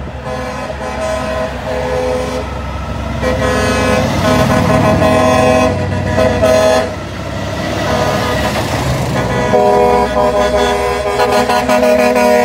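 Truck air horns blowing in long, overlapping blasts as heavy trucks pass close by. There is a break of about two seconds past the middle where only the trucks' engine and tyre noise is heard, then the horns start again.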